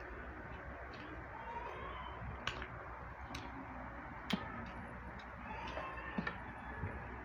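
Eating by hand at a table: scattered light clicks and taps of fingers and food against plates as rice, fish and crab are picked apart, the sharpest click a little past four seconds in, over steady background noise.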